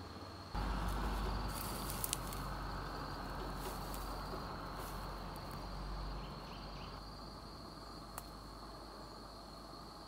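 An insect, likely a cricket, singing one steady high-pitched note. Over it, a low rumbling noise sets in about half a second in and fades after about six seconds, with a few sharp clicks around two seconds in and near eight seconds.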